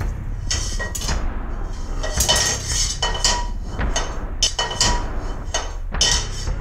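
Metal pots, pans and utensils clattering and clanking in irregular knocks, each one ringing briefly, over a steady low hum.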